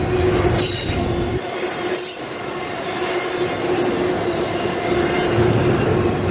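CSX intermodal freight train's cars rolling past on the rails, a continuous loud rumble with a steady ringing tone and three short, high wheel squeals in the first half.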